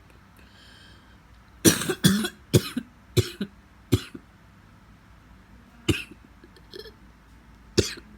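A person coughing in fits: a quick run of several coughs about two to four seconds in, then a single cough near six seconds and another near the end. It is a persistent cough that has gone on for five days.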